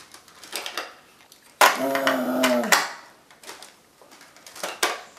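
Plastic LEGO Duplo bricks clicking and clacking against each other and a baseplate as a child builds, in scattered single knocks. About a second and a half in there is one loud pitched sound lasting about a second, its pitch dropping at the end.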